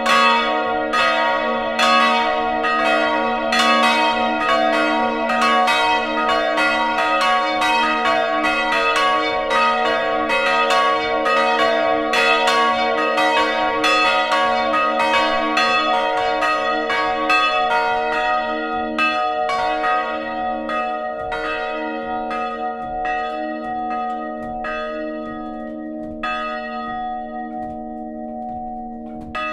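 Three swinging church bells ringing together as a full peal, their strokes overlapping above a steady hum. In the last third the strokes thin out and grow quieter as the bells slow and come to rest, and the hum rings on.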